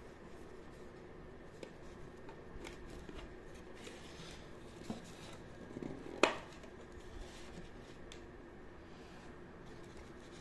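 Handling of a small metal tin pen box: light rustling and clicks, with one sharp metallic click about six seconds in as the tin's lid is opened.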